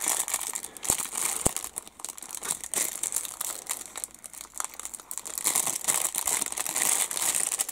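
Thin clear plastic bag crinkling as it is handled, with a couple of sharp ticks about a second in.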